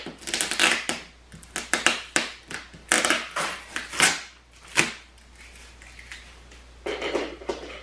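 Scissors cutting and scraping at the packing tape on a large cardboard box, with the cardboard rustling and clicking as it is held and worked. A run of short, sharp scrapes and clicks, a quieter stretch after the middle, then more near the end.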